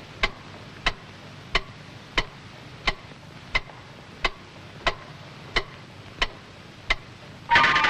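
Cartoon clock ticking, sharp evenly spaced ticks about one every two-thirds of a second, the loudly ticking cuckoo clock that keeps Woody awake. An orchestral brass burst cuts in near the end.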